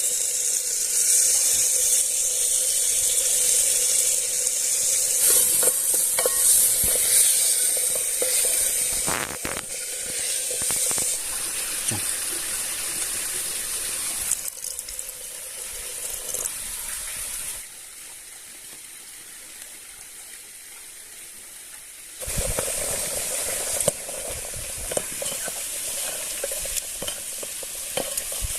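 Food sizzling as it fries in a pan, with the clicks and scrapes of stirring. The sizzle falls away for about five seconds, some two-thirds through, then starts up loudly again.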